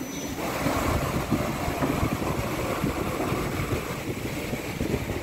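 Machinery running: a steady mechanical noise with no clear tone.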